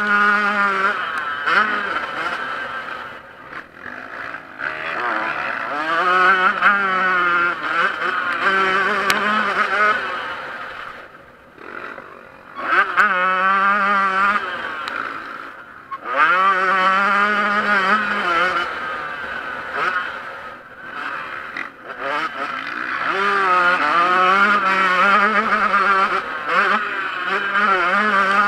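Yamaha YZ125 two-stroke motocross engine under race throttle, its pitch climbing and wavering as it revs hard, then falling away a few times as the throttle is shut before it revs up again.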